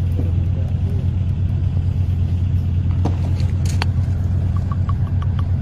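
Steady low engine rumble, like an idling motor vehicle, with a couple of faint clicks partway through.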